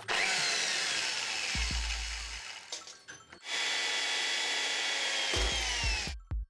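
Electric hand drill boring a hole through a metal sign, in two runs of about three seconds each with a short break between them. The motor's whine falls in pitch as the bit bites, and the drilling stops suddenly near the end.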